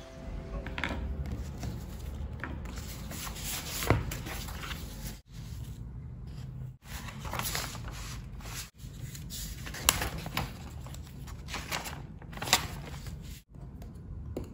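Paper notebook pages being handled and turned, rustling and scraping, with a few sharp clicks, the loudest about four, ten and twelve and a half seconds in. The sound drops out briefly several times.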